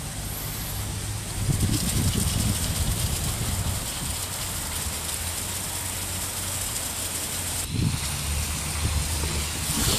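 Concrete mixer trailer's engine running steadily with a low hum under a haze of outdoor noise. It breaks off for an instant near eight seconds.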